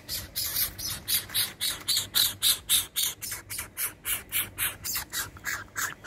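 Young greater coucal begging for food: a rapid, even run of short hissing calls, about four a second.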